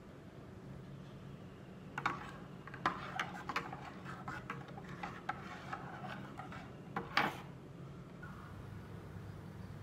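Metal spoon stirring in an enamel mug, clinking against its sides in a run of quick light taps for about five seconds, with a last louder clink about seven seconds in.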